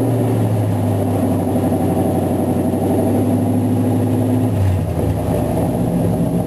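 Small-block Chevy 305 V8 in an '85 GMC C10 idling through an exhaust with no catalytic converter, a loud steady rumble whose note shifts briefly about two-thirds of the way through.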